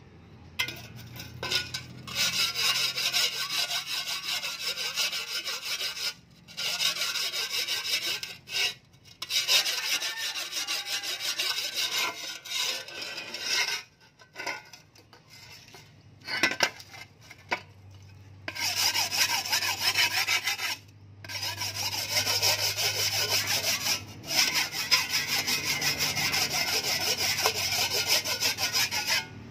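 Hand sharpening stone, wetted, rubbed back and forth along the edge of a steel shovel blade: long runs of rapid scraping strokes with short pauses between them, and a quieter break about halfway through.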